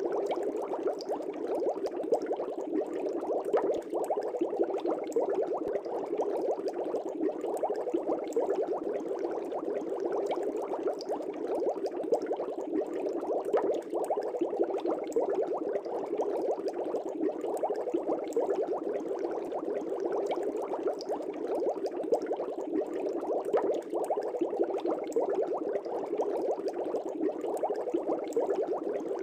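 Fish tank water bubbling: a steady, dense stream of air bubbles with many small pops.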